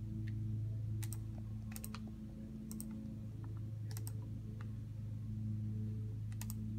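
About five sharp clicks on a MacBook laptop's keys or trackpad, each a quick double tick, spaced irregularly a second or so apart, over a steady low hum.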